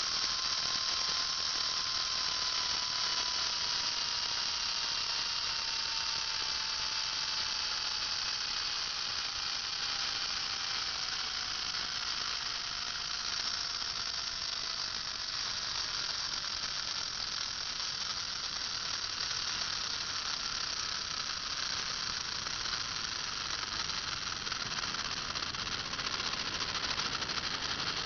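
Mura electric motor in a 1/24 scale slot car chassis, running steadily with a high whine. Its pitch slowly sinks over the first twenty seconds or so, then holds.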